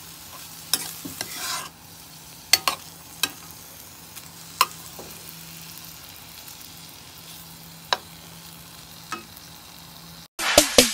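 Pork pieces sizzling quietly in a nonstick frying pan while being stirred with a metal spoon, with a sharp click every second or two. Electronic music starts abruptly at the very end.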